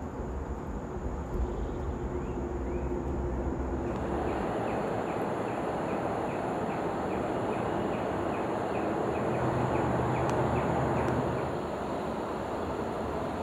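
Outdoor ambience: a steady wash of distant traffic noise with a low hum, and through the middle a rapid run of short, high, repeated chirps, about two or three a second.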